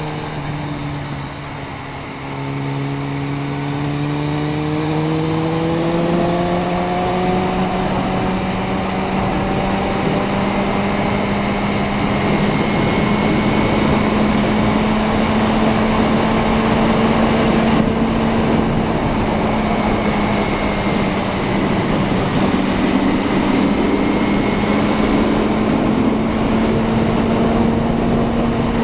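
Suzuki Bandit 650N's inline-four engine under way, heard from on board the moving motorcycle: the engine note dips low early on, then climbs steadily for several seconds and settles into an even cruise, over a constant rush of wind and road noise.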